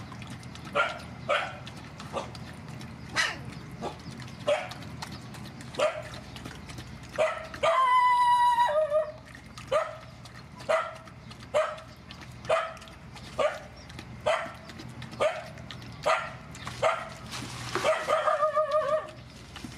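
A young puppy crying in short, repeated yelps, roughly one a second, with a longer drawn-out cry about eight seconds in and a wavering cry near the end.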